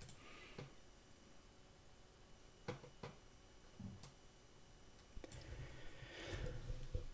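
A few faint, sharp computer mouse clicks, spaced irregularly, in a quiet small room, with a soft rising noise near the end.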